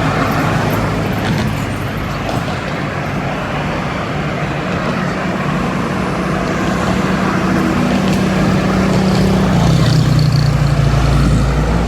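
Road traffic going through an intersection, a steady mix of vehicle engines, with one engine note growing louder in the second half and loudest near the end.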